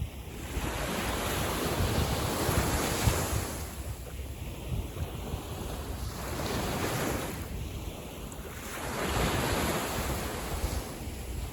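Small sea waves breaking and washing in, swelling three times, with wind rumbling on the microphone.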